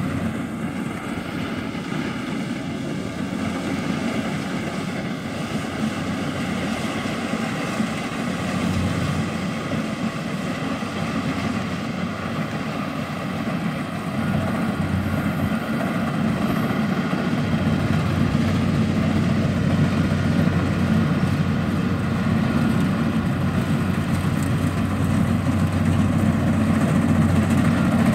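Kubota rice combine harvester running steadily as it harvests, its engine drone with a steady low hum growing louder over the second half.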